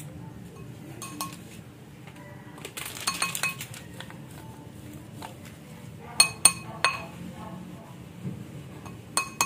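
Plastic measuring spoons clinking and tapping against a bowl while dry spices are spooned in: a few light taps early, a quick cluster about three seconds in, three sharp clinks between six and seven seconds in, and two more near the end.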